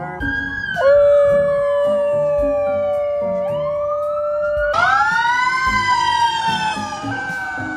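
Police siren wailing, with gliding tones that rise and fall and a dog howling along. A steady background beat of music runs under it.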